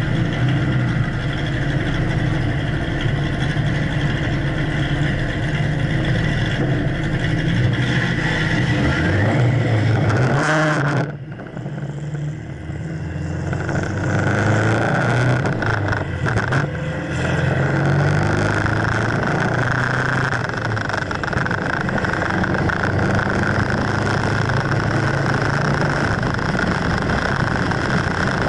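Vehicle engine running steadily while stopped. About eleven seconds in it dips briefly, then revs up as the vehicle pulls away. It settles into steady running with wind and road noise at speed.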